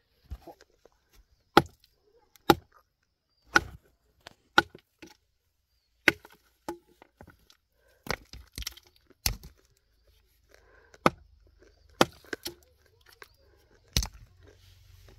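Rock being broken by hand with a striking tool: a dozen or so sharp, separate strikes on stone at an uneven pace of roughly one a second.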